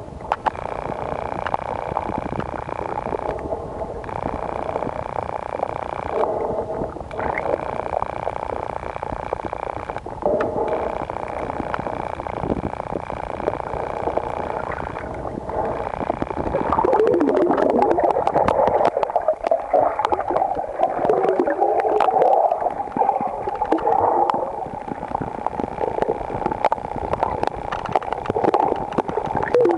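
Muffled underwater noise picked up by a submerged camera: a steady watery rush that dips briefly a few times, with wavering, bending tones joining in about halfway through.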